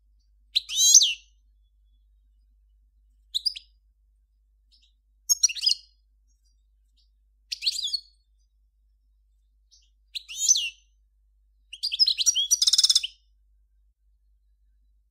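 A European goldfinch of the 'Major' type singing: six short, high twittering phrases two to three seconds apart, the last one longer and ending in a fast trill.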